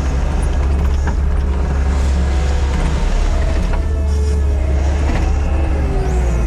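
Diesel engine of heavy earthmoving equipment running steadily under load, a deep continuous rumble.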